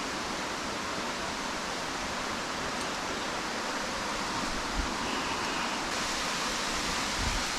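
Steady rushing hiss of falling water from a waterfall, with a couple of soft low thumps in the second half.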